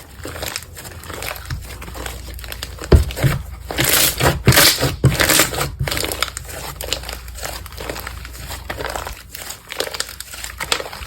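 Slime being squished and pressed by hand, giving a run of crackling, crinkly pops, loudest from about three to six seconds in.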